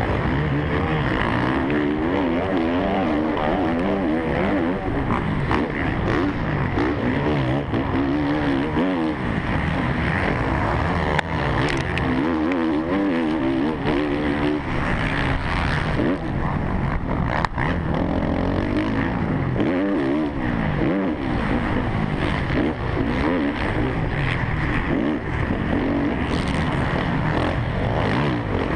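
Suzuki RM-Z450 motocross bike's four-stroke single-cylinder engine at race pace, its pitch rising and falling as the throttle opens and shuts through corners and straights, with a couple of sharp knocks along the way.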